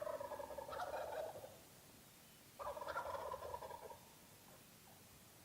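Wild turkey gobbler gobbling twice, each gobble a rapid rattling call of over a second, the second starting about two and a half seconds after the first.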